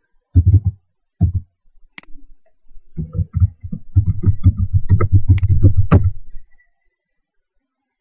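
Typing on a laptop keyboard: a few keystrokes near the start, then a fast run of keystrokes from about three to six seconds in, mixed with a few sharper clicks.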